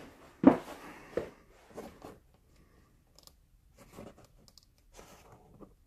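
Metal parts being handled: a sharp knock about half a second in, then a scatter of fainter clicks and knocks.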